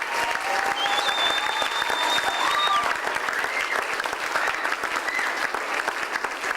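Audience applauding steadily, with a held high whistle over the clapping from about a second in to about three seconds in.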